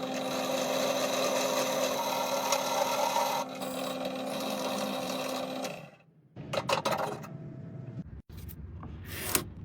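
A power tool running with a steady hum while working wood, stopping abruptly about six seconds in; after that come scattered knocks, clicks and scraping.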